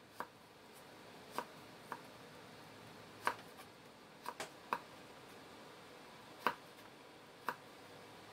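Kitchen knife slicing a carrot into thin strips on a wooden cutting board: a sharp knock each time the blade goes through and hits the board, about nine at uneven intervals.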